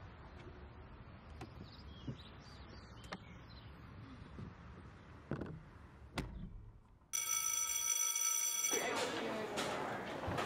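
Faint outdoor ambience with a few soft footsteps. About seven seconds in, an electronic school bell rings steadily for about a second and a half, then students chat and move about in a classroom.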